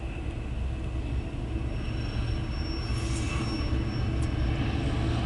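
A freight train's double-stacked container well cars rolling past in a steady rumble, heard from inside a car. A faint high whine comes in about two seconds in.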